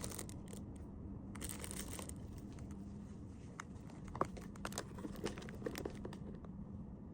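Plastic packaging crinkling and rustling in light, intermittent handling, with a few small clicks, over a faint steady hum.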